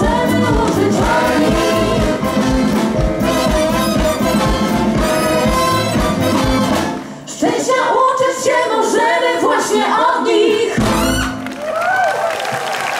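Three women and a man singing together with an orchestra. The low accompaniment drops out about seven seconds in while the voices carry on, a final orchestral chord sounds near the end, and applause begins just after.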